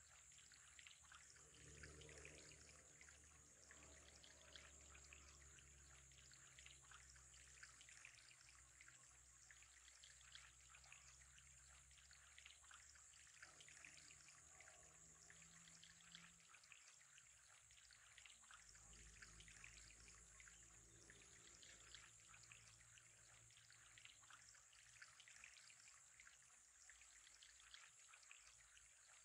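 Faint, steady trickling water in an aquarium, a fine continuous patter, with a low hum beneath.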